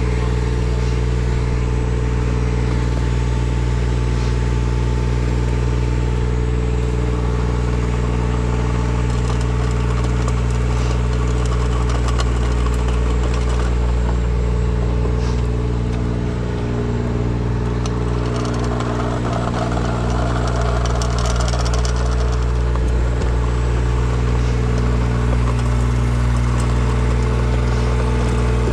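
An engine running steadily at a constant speed, with a slight dip in level a little past halfway.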